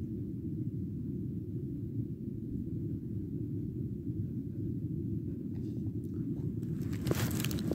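Steady low rumble with no clear source, with a brief crackle near the end.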